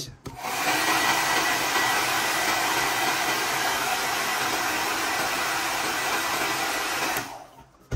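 Hot-air blower running steadily to heat a mouse's adhesive feet and soften their glue for removal, with a faint steady whine; it switches off about seven seconds in.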